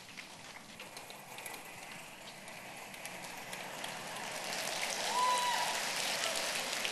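Theatre audience applauding, the clapping swelling for about five seconds, with a voice briefly calling out from the crowd near the loudest point.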